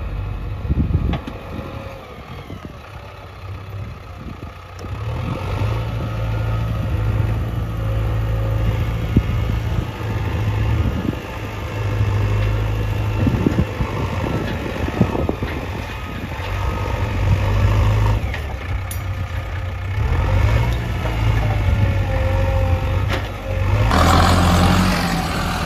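JCB 3DX Xpert backhoe loader's diesel engine running, its level rising and falling as the machine works, with scattered sharp knocks. Near the end the sound turns louder and noisier.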